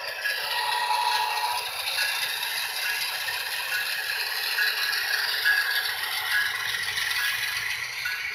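Model train running on sectional track: model diesel locomotives and container cars rattling and clattering steadily as they roll.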